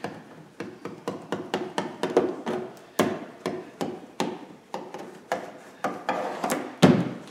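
A screwdriver tapping and pressing along the trunk opening's plastic trim and rubber weatherstrip: irregular sharp clicks and knocks, about three a second, as the trim is seated in its groove. A louder, deeper knock comes near the end.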